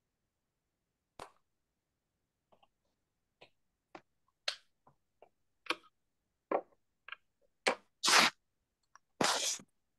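About a dozen irregular clicks and knocks, a few each second from about a second in, then two longer scraping noises near the end, which are the loudest sounds.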